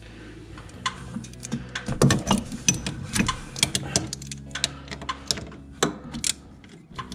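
Hand ratchet clicking in short, uneven strokes with metal clinks as the bolt on the steering shaft's U-joint is tightened.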